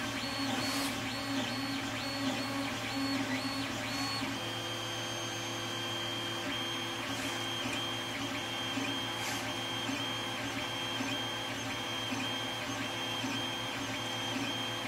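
Creality Ender 3 3D printer printing with its stepper motors still undamped. Several steady whining tones break off and resume about twice a second, and shift up in pitch about four seconds in.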